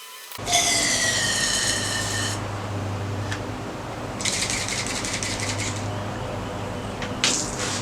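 A small motor running steadily with a low hum, a high whine coming in twice over it.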